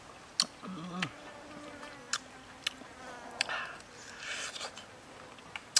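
Wet clicks and smacks of a mouth biting into and eating a sticky grilled chicken wing, about half a dozen sharp clicks. An insect buzzes faintly at times.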